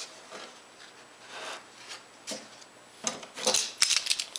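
Pine template strips being slid and rubbed against one another on a plywood bench top, then a quick run of light clicks and knocks from about three seconds in.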